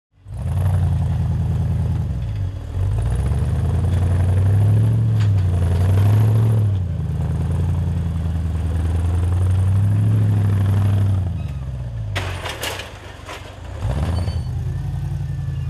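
Rock-crawler buggy engine revving up and down in repeated swells as it climbs a steep dirt slope. A short clatter of sharp knocks comes about three-quarters of the way through, then the engine drops back and picks up again.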